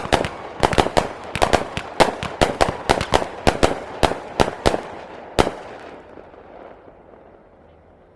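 Professional aerial fireworks going off in a rapid barrage of sharp bangs, about three or four a second. The barrage ends with one last loud bang about five and a half seconds in, and the rumble then fades away.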